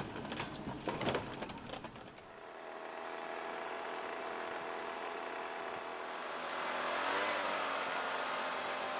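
A vehicle heard from inside: a few knocks and handling noises in the first two seconds, then steady engine and road noise that grows a little louder, with the pitch rising, about seven seconds in.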